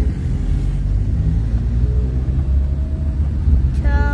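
Car driving along, a steady low rumble of road and engine noise heard from inside the cabin.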